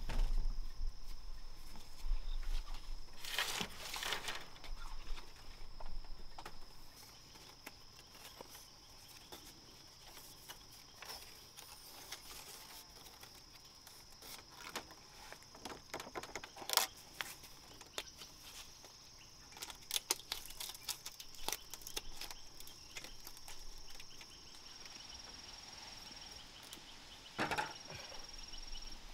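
A steady high-pitched insect drone, with scattered knocks and snaps of wood being worked by hand.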